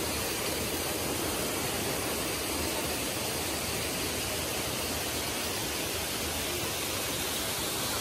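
Steady rushing of water from a waterfall tumbling over rocks into a stream pool.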